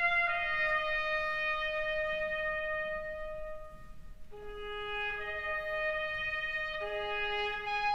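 Radio programme's closing theme music: a slow melody of long held notes with a brass, trumpet-like sound. There is a brief pause between phrases about four seconds in.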